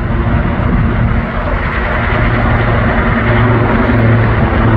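Sikorsky S-76 helicopter flying low just after takeoff: a steady, pulsing rotor thrum under a turbine hum, growing louder about a second and a half in.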